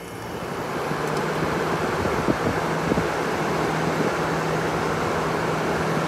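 1960s Westinghouse Mobilaire 5000 portable air conditioner running: a steady rush of air from its fan over a low, even motor hum, growing louder over the first second and then holding steady.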